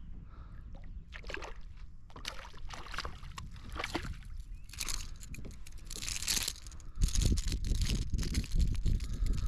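Hooked fish thrashing and splashing at the water's surface, in a run of splashes from about a second in. Near the end a heavier low rumble takes over as the fish is lifted into the kayak.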